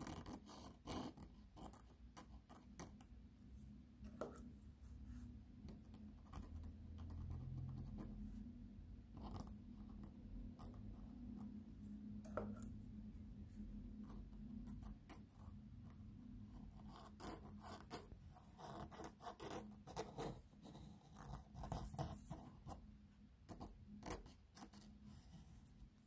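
Fine-tipped ink pen scratching across paper in short, irregular strokes. A faint, low, steady hum runs underneath.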